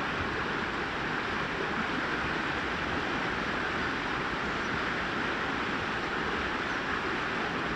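Brook water cascading and babbling over rocks: a steady, unbroken rush.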